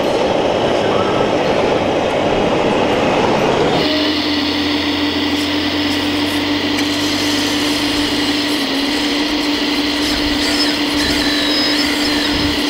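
A dense hall hum for about four seconds, then the steady electric whine of a 1:14-scale RC hydraulic excavator's pump as the Volvo model works its arm in gravel.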